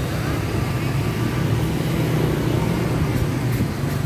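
City street traffic: car and motorbike engines running steadily as vehicles move along the road.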